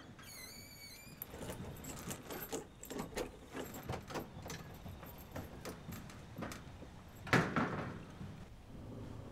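Metal security screen door clicking and rattling as it is handled and opened, with a brief wavering squeak near the start and a louder clatter about seven seconds in.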